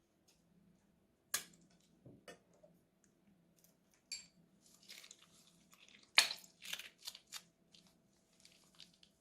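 Crunchy slime being squeezed and worked, crackling and popping in irregular sharp snaps, the loudest about six seconds in.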